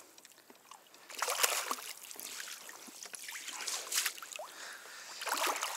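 Sea water splashing and sloshing in irregular bursts as a landing net is worked through the water beside a kayak to land a fish; the biggest splash comes about a second and a half in.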